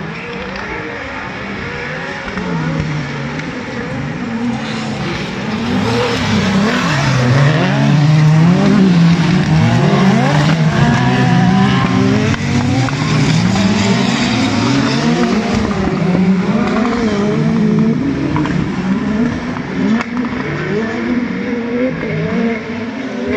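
Several 4-litre class autocross racing cars on a dirt track, their engines revving up and down through the gears at once. The sound swells as the pack passes close, around the middle, and eases slightly toward the end.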